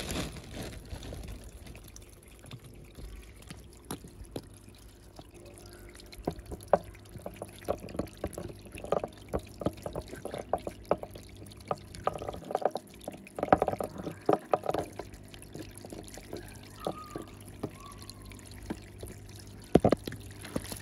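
Water trickling and splashing over stones in a small rock fountain, with irregular sharp taps and clicks that come thickest in the middle.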